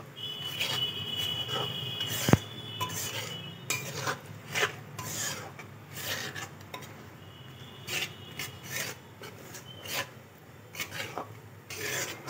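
Flat metal spatula scraping and stirring moong dal flour as it roasts in ghee in a metal kadai: a repeated rasping scrape with each stroke. There is a single sharp tap about two seconds in.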